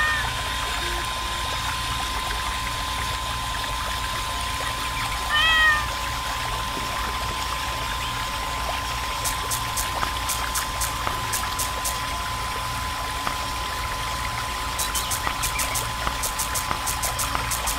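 A miniature water pump running steadily with a thin whine while a thin stream of water pours from its hose into a small plastic pond. About five seconds in comes a short meow. In the second half, rapid faint ticking joins in.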